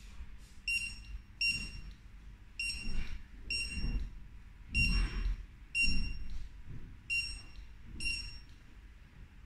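Handheld 1D barcode scanner giving its short, high good-read beep about eight times at uneven intervals as it decodes a box label. Low dull thumps of handling and movement sound underneath.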